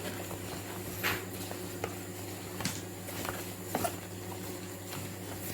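Steady low electrical hum, with a few faint scattered clicks and rustles.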